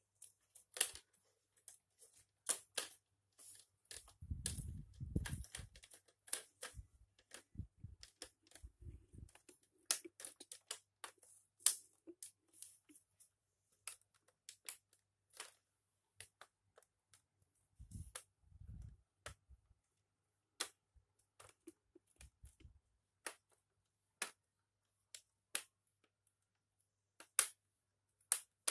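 Plastic screen bezel of an Acer laptop being pressed onto the display lid, its clips snapping into place in a long string of sharp clicks. A few dull, low thumps of handling come in between.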